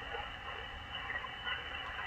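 Steady hiss of a shortwave receiver tuned to a single-sideband voice channel between transmissions, with faint static crackles.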